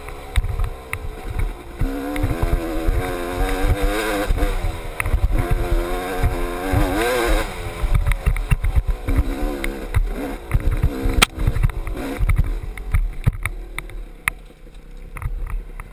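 GasGas dirt bike engine revving up and down repeatedly as it is ridden along a rough trail, heard through a helmet-mounted camera with low buffeting thumps on the microphone. The engine falls back to a quieter, lower note near the end.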